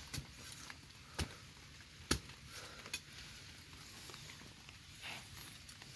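A handful of sharp clicks and taps over faint rustling of leaf litter, from hands and a small digging tool working the forest soil to pry out termite mushrooms. The loudest click comes about two seconds in.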